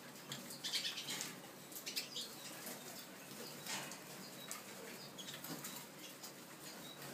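Pine siskins moving about in a wire cage: wings fluttering, with scattered light clicks and a few brief high chirps.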